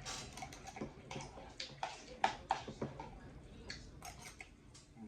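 Close-up eating sounds: an irregular string of sharp clicks and crunches from a utensil and bowl and from chewing.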